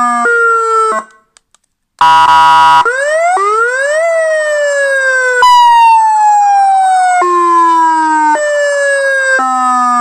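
PS-V9 wireless-remote electronic siren amplifier playing through its horn speaker, cycling through tones. A pattern stepping between fixed pitches cuts off about a second in and leaves a second of silence. Then comes a short loud horn tone, then a wail that rises and falls in long sweeps, then tones stepping to a new pitch about once a second.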